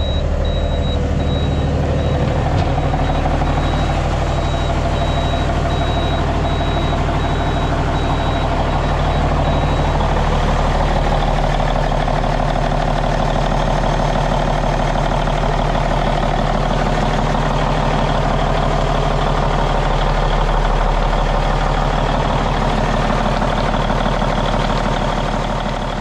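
Cummins N14 Celect Plus inline-six diesel in a semi truck running steadily, now starting and running after its pinched engine position sensor wires were repaired. A high warning beep pulses quickly for about the first ten seconds, then stops.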